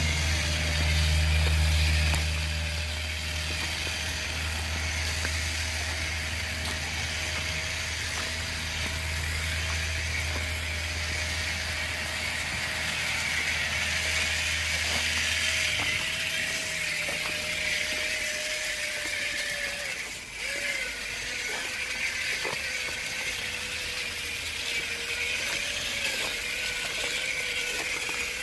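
Small electric motor and gears of a homemade RC 4x4 crawler running steadily as it drives over snow and ice. A steady low hum underneath stops about sixteen seconds in.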